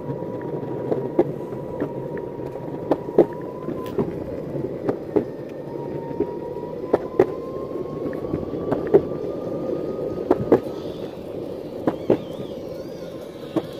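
Electric skateboard rolling over pavement: a steady rumble from the wheels, broken by sharp, irregular clicks about once or twice a second as they cross seams and cracks. A faint, thin motor whine rises slowly in pitch past the middle.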